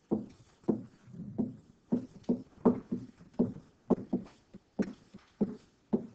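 Pen strokes knocking and tapping on a hard writing surface as words are handwritten: a string of irregular sharp knocks, two or three a second.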